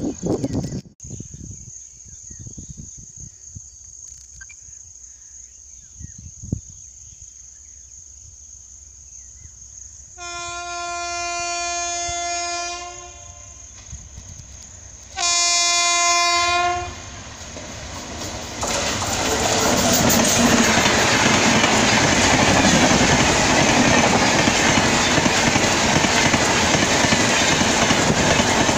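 Locomotive horn of an Indian Railways express sounding twice as the train approaches at speed: a long blast, then a shorter, louder one. The train then passes close by, its coaches making a loud, steady rush of wheels on rail.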